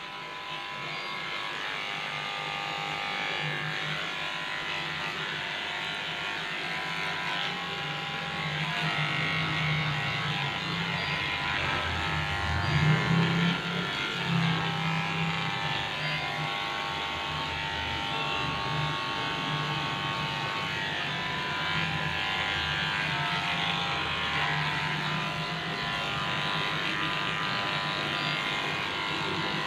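Cordless pet hair clipper buzzing steadily as it shaves down a matted Lhasa Apso's coat, loudest about thirteen seconds in.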